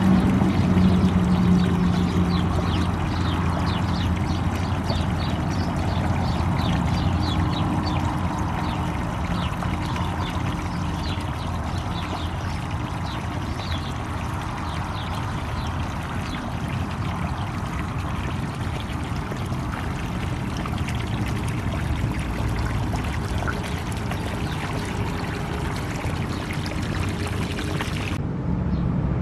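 Water running from a garden hose onto soil, with a steady low motor hum underneath. The sound turns duller just before the end.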